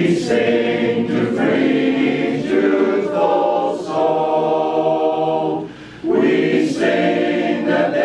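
Men's chorus singing a cappella in close harmony, holding long sustained chords; the voices break off briefly about six seconds in, then come back in together.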